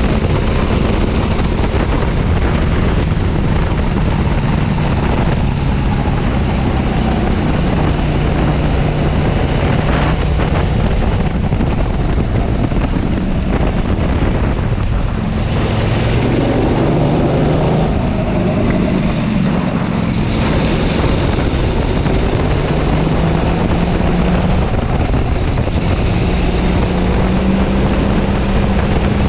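Racing kart engine running hard at full throttle, heard onboard. Its pitch climbs steadily along the straights and drops away through the slower corner about halfway through, then climbs again, with wind rumbling on the microphone.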